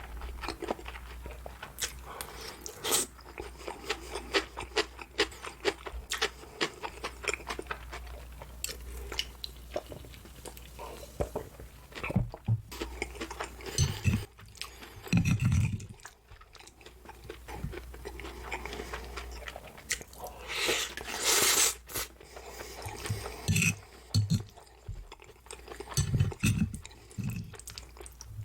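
Close-miked chewing of crunchy food: many small crisp crunches through the first half, then slower chewing with scattered low thumps.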